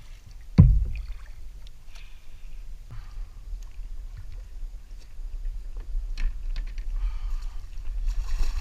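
Knocks and bumps on a kayak while a muskie is being handled: one sharp thump about half a second in, then scattered small knocks and clicks over a steady low rumble.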